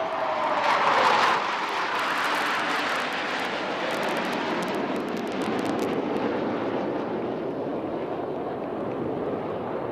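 Formation of Tejas light combat aircraft flying past: a jet engine whine glides down in pitch as the jets pass, loudest about a second in, then a steady jet engine noise with some crackle that slowly eases off.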